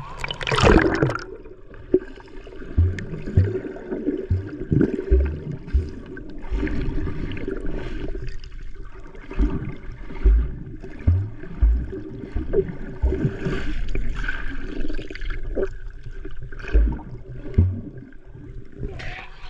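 A splash as the camera goes under the sea surface, then muffled underwater water noise: gurgling and swirling water around the submerged camera with irregular low thumps.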